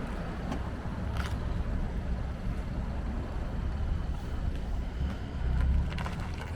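A car running with a steady low rumble that swells louder about five and a half seconds in.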